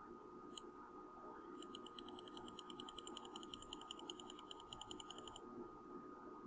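A computer mouse clicking once, then its scroll wheel ticking rapidly and evenly for about four seconds, faint over a steady low room hum.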